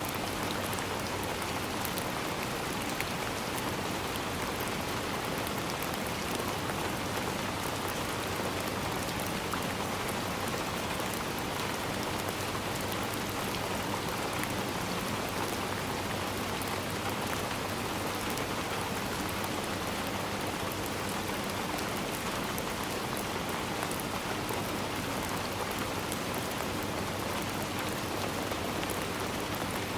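Steady rain falling: an even hiss with a fine patter of drops that keeps the same level throughout.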